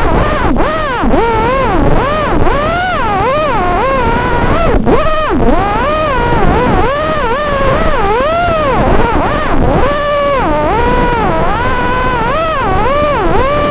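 Brushless motors and 5-inch propellers of an FPV racing quadcopter (ZMX 2205 2633kv motors, King Kong 5x4 props) whining in flight. The pitch swoops up and down continuously with rapid throttle changes.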